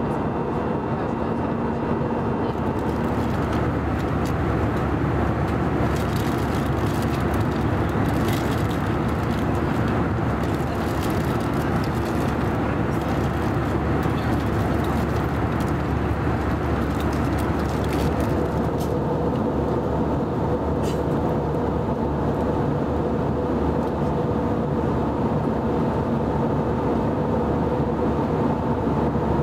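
Steady cabin noise of an Airbus A320 in flight, heard from a window seat: the even drone of engines and rushing air with a few steady hums in it. A few light clicks come through in the first half.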